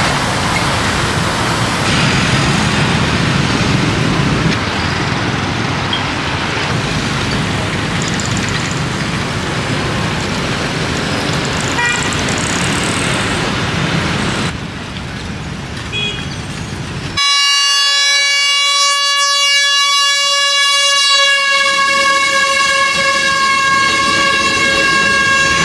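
Road traffic noise from motorbikes and cars at a level crossing. About two-thirds of the way through, a train horn starts abruptly and sounds continuously as a steady, many-toned chord while the train comes through the crossing.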